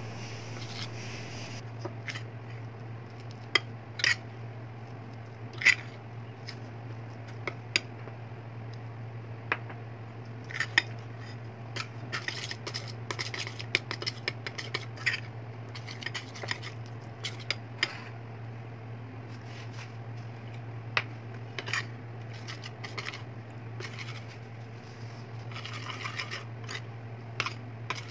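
Metal spoon stirring thick flour-and-water batter in a ceramic bowl, clinking and scraping against the bowl many times at irregular moments, over a steady low hum.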